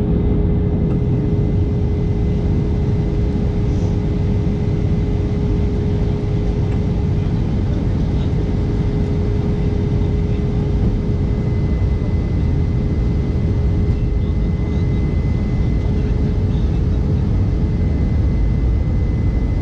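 Jet airliner cabin noise from a seat beside the wing: the turbofan engine and the airflow make a steady low rush, with a steady hum over it.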